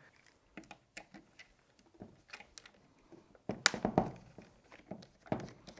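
Small clicks and taps of a hand tool working a screw at the back of an airsoft rifle's motor and of the rifle's parts being handled, with a louder cluster of knocks about three and a half seconds in.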